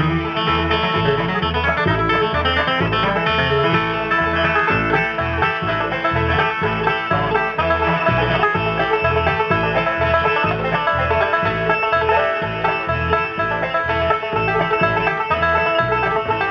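Live bluegrass band playing an instrumental tune: banjo picking over guitar, with a steady plucked bass beat.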